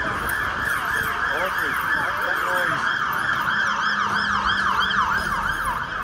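Emergency vehicle siren switching from a slow falling wail to a fast yelp, its pitch rising and falling rapidly over and over.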